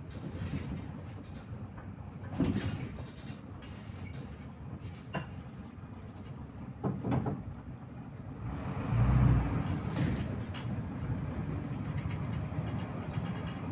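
Ride inside a MAZ 103 city bus: steady engine and road rumble with rattles and a few sharp knocks. The rumble grows louder and fuller about nine seconds in.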